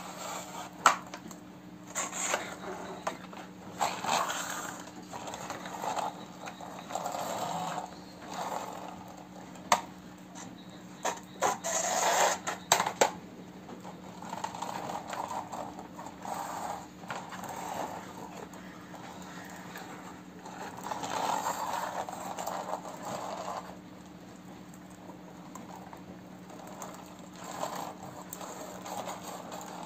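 Plastic toy dump truck being handled: scattered clicks, rattles and scrapes of its plastic body, wheels and tipping bed on a hard floor, the sharpest clicks about a second in and around twelve seconds in. A faint steady hum runs underneath.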